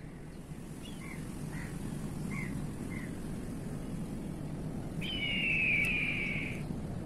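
Bird calls: a few short chirps in the first three seconds, then one longer, louder call about five seconds in that lasts about a second and a half, over a steady low rumble.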